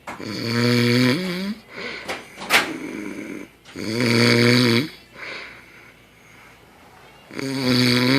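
A sleeping man snoring loudly: three long, rasping snores, each about a second long and a few seconds apart. A short sharp noise falls between the first and second snore.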